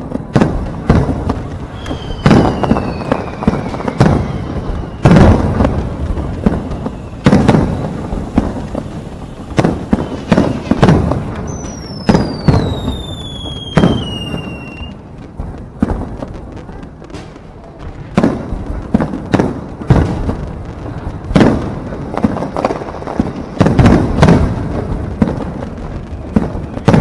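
Aerial fireworks display: a rapid series of shell bursts, bangs and booms with echoing tails, with two long falling whistles, and a short lull a little past the middle.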